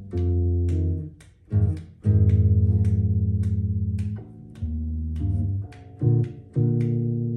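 Sterling SUB4 StingRay electric bass played through an Ampeg BA110 combo amp: a slow line of plucked low notes, each left to ring for up to about two seconds. The EQ sits flat at its centre detents. A steady tick runs underneath, about twice a second.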